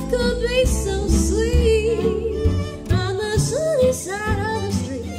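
A woman singing a melody while accompanying herself on a concert harp, plucking chords.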